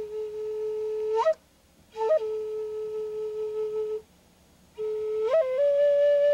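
Native American flute played in slow, long held notes, each joined to the next by a quick upward grace-note flick, with two short pauses for breath. The first two notes sit low; the note starting about five seconds in is held a step higher.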